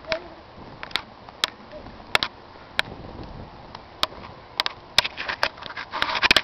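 Scattered sharp ticks of falling snow pellets striking the camera, about one or two a second, coming thick and fast near the end.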